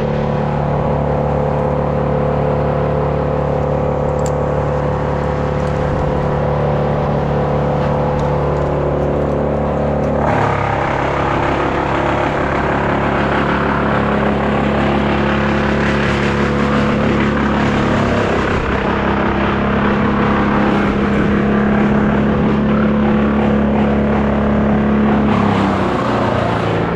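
An engine running steadily for the whole stretch. About ten seconds in it turns rougher and noisier, and around eighteen seconds its pitch shifts, as with a change in load or speed.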